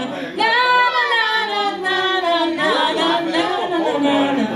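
A woman singing a melody, with notes held and gliding in pitch.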